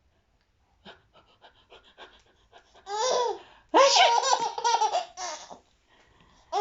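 Baby belly-laughing: quick breathy huffs build into two bursts of high, pitched laughter. The second burst, about four seconds in, is the longest and loudest.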